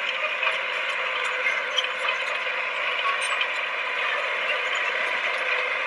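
Komatsu D20P crawler bulldozer at work: a steady mechanical clatter from its running gear and steel tracks over the engine, with many small rapid ticks.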